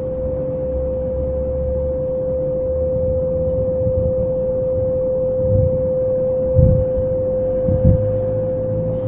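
Steady electrical hum at one fairly high pitch from the microphone and sound system, over a low rumble. A few soft, low murmurs come between about five and eight seconds in.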